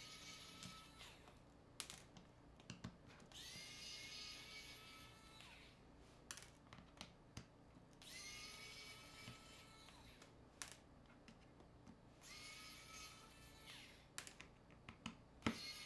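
A small electric precision screwdriver whirring in four runs of about two seconds each, its pitch rising as it spins up, while it backs screws out of a smartphone. Short light clicks of the tool and small parts come in between the runs.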